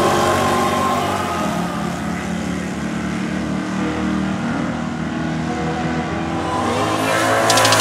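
Two drag-racing cars at full throttle as they run down a drag strip, their engines making a steady sustained drone.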